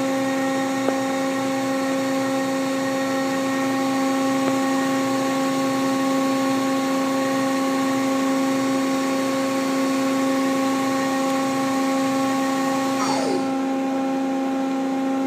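Spindle of a 1997 Mazak Quick Turn 20 CNC lathe running steadily at 1,500 RPM, a whine of several steady tones. About 13 seconds in, the spindle brakes to a stop with a quickly falling whine, and the machine's lower steady hum carries on.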